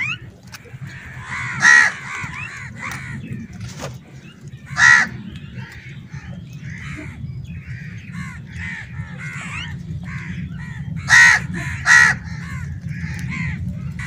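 Crows cawing: four loud, harsh caws, two of them close together near the end, over fainter chirping bird calls and a steady low background hum.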